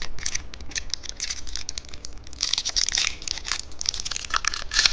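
Plastic candy wrappers crinkling and tearing in a dense run of quick crackles.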